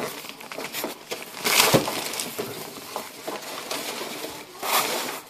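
Plastic wrapping and polystyrene packing crackling and rustling as they are pulled away from the base of a new washing machine, with two louder rustling surges, one about a second and a half in and one near the end.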